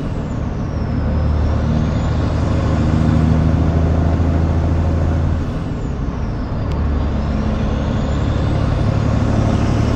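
Caterpillar C15 inline-six diesel in a semi truck pulling through the gears, heard from inside the cab. Engine speed drops at a gear change near the start and again about halfway through, then pulls back up under load, with a high turbo whistle falling and climbing with the revs.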